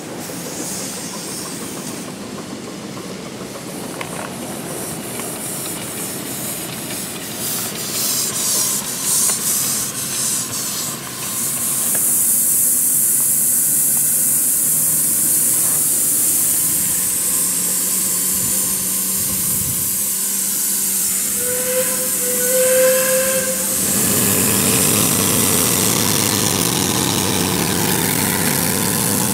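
1.5-inch-scale (7.5-inch-gauge) live-steam locomotive working on the track, then a loud steady hiss of escaping steam from about twelve seconds in. Near the middle of the hiss come two short whistle toots.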